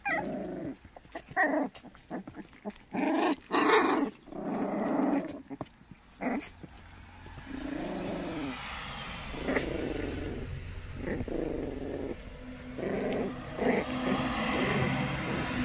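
White baekgu puppies growling in short, irregular bouts as they play-fight in a litter. From about halfway through, a steady low hum runs underneath.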